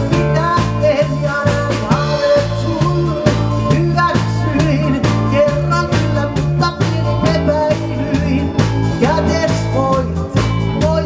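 Live band playing an upbeat pop-rock song: electric guitar, bass guitar and drum kit, with a stepping bass line under a steady drum beat.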